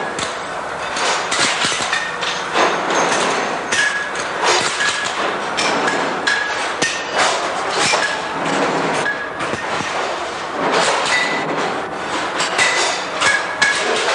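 Plier wire-test machine running, clanking and clinking irregularly as pliers are closed on wire to check the hardness of their cutting edges. Sharp metal-on-metal knocks come throughout, some leaving a brief high ring.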